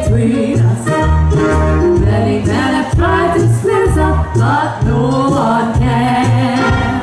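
Live band music with women's voices singing in harmony over a bass line and drums.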